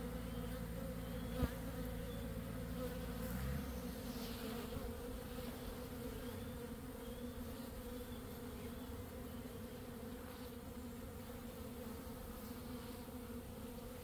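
Honey bee swarm cluster, just cut down on its branch, humming steadily with the buzz of thousands of bees. A single sharp click about a second and a half in, and a low rumble underneath that stops after about three and a half seconds.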